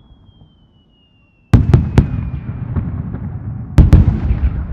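Aerial firework shells bursting: a fading crackle dies into near silence, then sharp loud booms break out about a second and a half in, three in quick succession, followed by crackling and rumbling echoes. Another pair of loud booms comes near the end.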